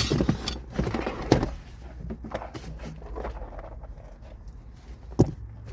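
Knocks, scrapes and rustling as tools and parts are handled. Several knocks come in the first second and a half, and one sharp click comes about five seconds in.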